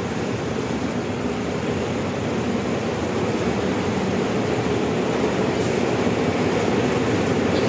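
State Railway of Thailand diesel locomotive running in slowly, its engine rumble steady and growing louder as it nears. A brief high squeak comes about five and a half seconds in.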